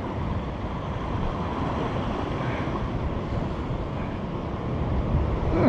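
Steady ocean surf washing against a rocky shore, with wind buffeting the microphone.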